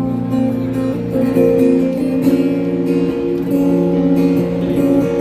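Acoustic guitar strumming chords in a slow song's instrumental passage, with no singing.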